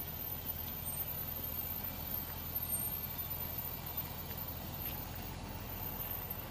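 A vehicle rolling along with a steady low rumble, its wheel giving a faint, short high squeak now and then.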